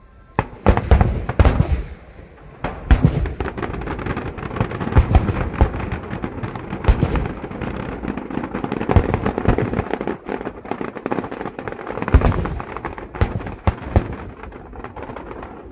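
Aerial fireworks barrage: a rapid run of shell bursts, deep booms and crackling. It starts suddenly about half a second in, stays dense, and thins out near the end.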